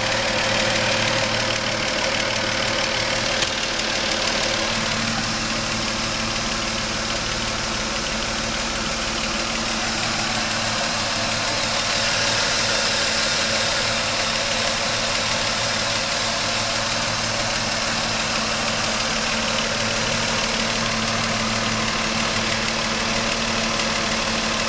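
Car engine idling steadily under a loud, even hiss; the owner asks whether a knocking in it is engine knock.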